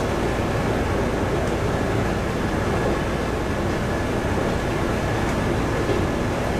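Steady noise inside a Kanto Railway KiHa 310 diesel railcar under way. The underfloor DMH17 diesel engine drones, mixed with wheel-on-rail noise.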